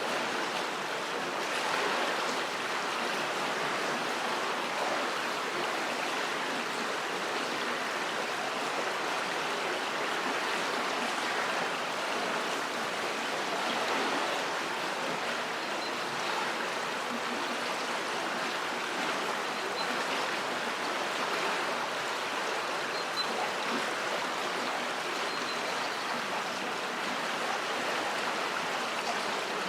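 River water flowing under a bridge: a steady, even rush of moving water with no breaks.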